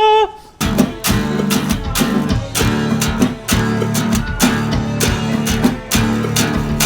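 A held sung note ends, and about half a second in heavy alt-metal music kicks in: distorted guitars and bass with hard-hit drums and cymbals.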